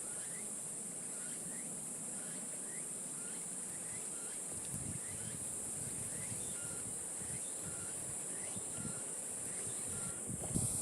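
Steady, high-pitched insect chorus of summer outdoors, with short rising chirps repeating about twice a second. Low rumbling noise joins from about four seconds in.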